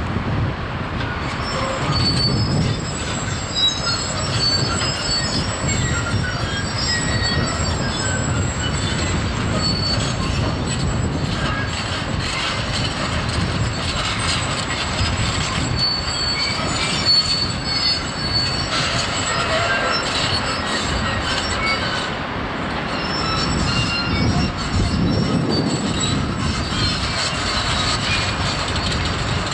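Construction machinery running steadily: a truck-mounted concrete pump and a concrete mixer truck working together, a continuous low rumble with scattered short, high metallic squeals.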